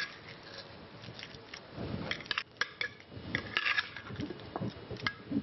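A utensil mixing guacamole in a bowl: wet stirring and scraping with irregular clinks against the bowl.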